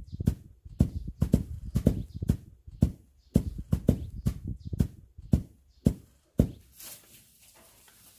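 Wooden mallet pounding a pile of unhusked rice spread on a paper sheet on the ground, dull thuds about two a second, now and then doubled, stopping about six and a half seconds in.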